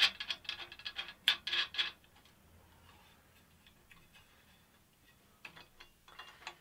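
Metal hex bolts and fittings clicking and rattling in quick succession for about two seconds as they are handled and fitted into the drill platform's slots, then a few lighter clicks near the end.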